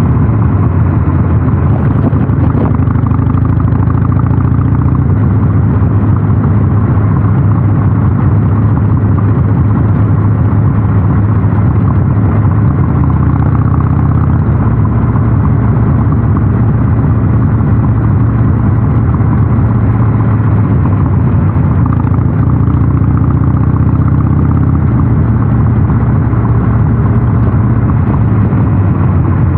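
Harley-Davidson Sportster 883 Super Low's air-cooled V-twin engine, fitted with a North American-spec muffler, running steadily under way with a deep, low exhaust note.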